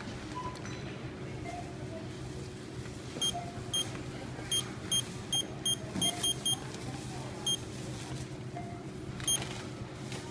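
Ingenico iSC250 card terminal keypad beeping as keys are pressed: eleven short, high beeps, most in a quick run in the middle and one near the end, over a steady store hum.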